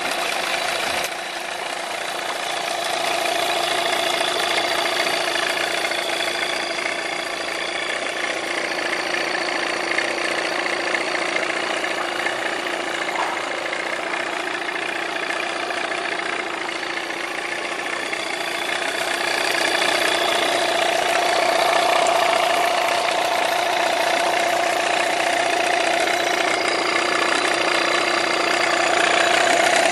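1989 Yamaha 8LF 8 hp two-stroke outboard motor running steadily in a water test tank, a little louder from about twenty seconds in.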